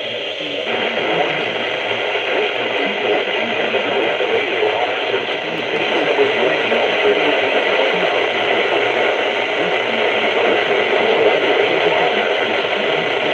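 Steady hiss of radio static from a software-defined radio receiver tuned to a NOAA Weather Radio frequency, growing slightly louder over the first few seconds.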